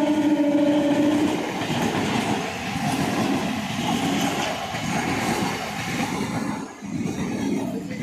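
Howrah local train passing, its horn note ending about a second in, then the steady rumble and rattle of its wheels on the track.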